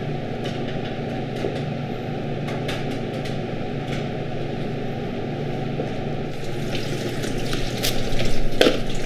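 Silicone spatula scraping thick pastry cream from a stainless steel tray into a metal bowl: a few light scrapes and taps over a steady rushing background noise. Near the end comes a louder rustle of plastic wrap being pulled out to cover the tray.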